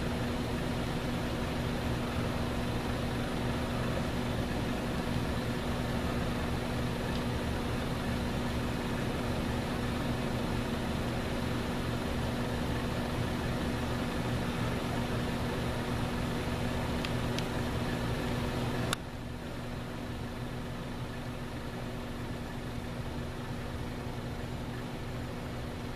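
Steady hum of an idling vehicle engine, with a faint click about 17 seconds in; the hum drops abruptly to a lower level about 19 seconds in.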